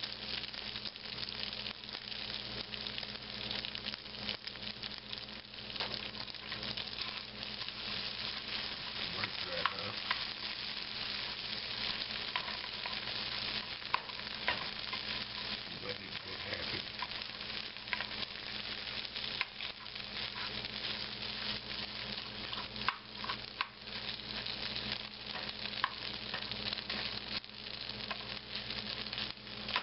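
Leftover eggs, meat, potatoes and beans sizzling steadily in a nonstick frying pan as they heat up. A spatula stirs them and now and then scrapes and taps against the pan.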